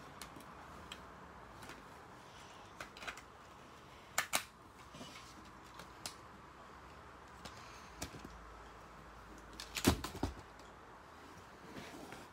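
Plastic clicks and clacks of a brick-built LEGO toy gun being handled and worked by hand: scattered light clicks, two sharper clacks about four seconds in, and the loudest cluster of knocks about ten seconds in.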